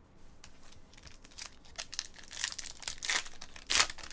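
Trading-card pack wrapper crinkling and tearing as a pack is ripped open, a run of crackly rustles that grow louder in the second half.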